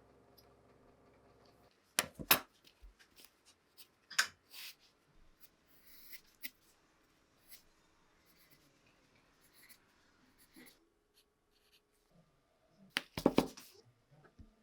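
A steady machine hum stops about two seconds in. After it come scattered sharp clicks and knocks of small metal parts being handled, with a cluster of louder knocks near the end.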